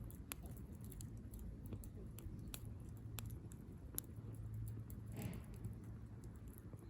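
Small wood fire crackling in a Firebox Stove, with scattered sharp pops and ticks, the sharpest about four seconds in.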